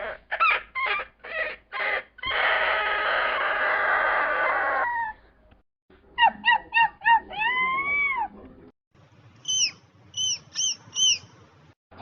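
Homemade dinosaur sound effects played one after another: a run of short chirps, then a long rasping call of about two and a half seconds. After that come a burst of quick chirps ending in one longer call that rises and falls, and near the end four high, thin chirps. Each effect starts and stops abruptly.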